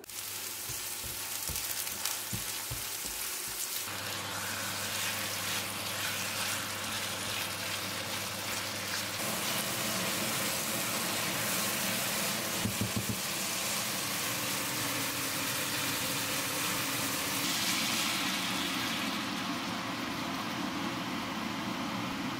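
Diced chicken breast sizzling as it fries in a nonstick pan, stirred now and then with a plastic spatula. A few knocks come in the first seconds, and a low steady hum joins about four seconds in.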